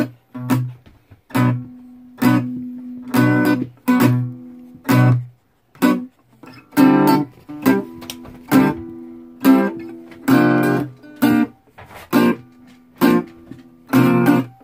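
Acoustic guitar strummed by hand: a run of chords, each struck sharply and left to ring briefly before the next, roughly one stroke a second.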